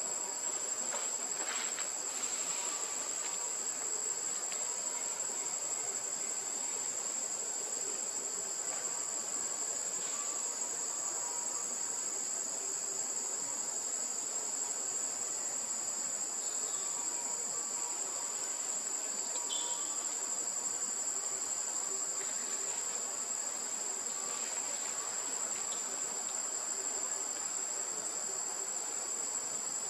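Insects in the forest shrilling steadily at one high pitch, unbroken throughout, with a couple of faint short chirps about halfway through.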